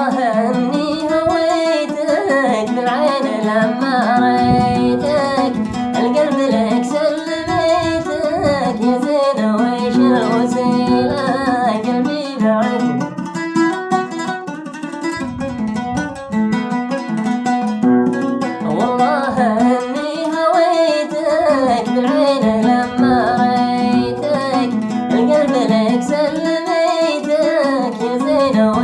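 A man singing a Mishqasi-style sawt song over a plucked string instrument.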